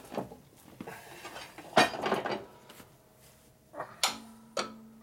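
Sharp metal clanks of steel parts being handled in a hydraulic shop press, the loudest about two seconds in. Near the end a mallet strikes a steel part held in the press a couple of times, leaving a short ringing tone.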